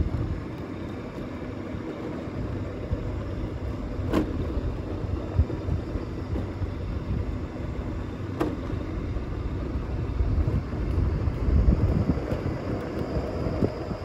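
Low, uneven rumble of a moving vehicle, with two sharp clicks about four seconds apart.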